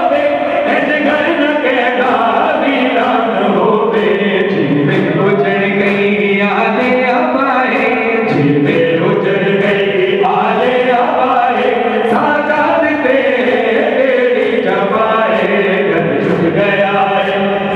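A male reciter sings a Shia noha (mourning lament) in Punjabi through a microphone, the congregation chanting along in chorus. Under the voices runs a steady beat of hand strikes, the mourners' matam (chest-beating) keeping time.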